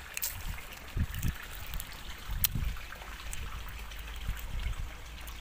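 Water trickling steadily from a garden irrigation hose. Under it runs a low rumble, with a few soft knocks and one sharp click from handling the microphone.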